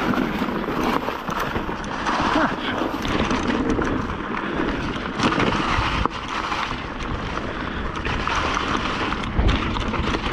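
Mountain bike riding fast down a dry-leaf-covered dirt trail: steady wind rush on the microphone, tyres rolling through leaves and dirt, and frequent short knocks and rattles from the bike over bumps.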